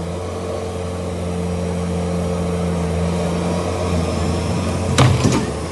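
Tracked skid-steer loader's diesel engine running steadily as it tows a Jeep stuck in deep mud on a strap. About five seconds in, a brief sharp clatter of knocks stands out above the engine.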